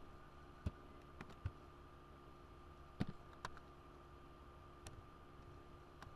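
A few scattered keystrokes on a computer keyboard, irregularly spaced single clicks, over a faint steady electrical hum.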